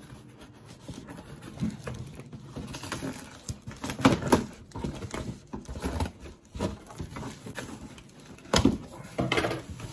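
Cardboard shipping box being opened by hand: the flaps and packing scraping, rustling and knocking in irregular bursts, loudest about four seconds in and again near the end.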